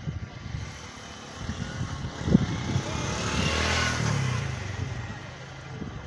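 A motor vehicle passing on the road, its engine and tyre noise swelling to a peak a little past halfway and then fading away. A single sharp knock sounds a little after two seconds in.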